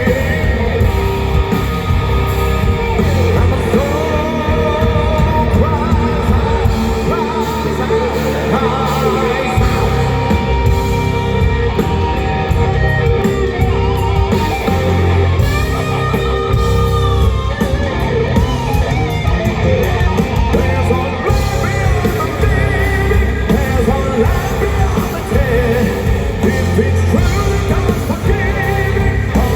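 A heavy metal band playing live, with a singer holding wavering notes over guitars, bass and drums. The bass and kick drop out for a couple of seconds about seven seconds in, then come back.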